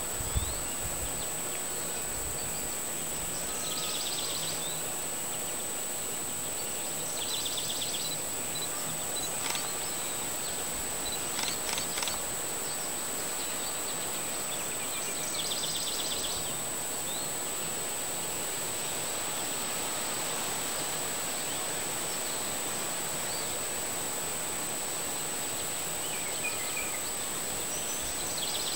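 Outdoor ambience: a steady hiss with a constant thin high-pitched whine, broken four times by a short buzzy trill of a distant small bird and by a few faint clicks midway.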